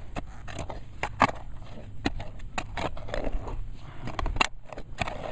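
Small hand digging shovel scraping and chopping into soil in a freshly dug hole: a run of irregular gritty scrapes and knocks, sharpest about a second in and again about four seconds in.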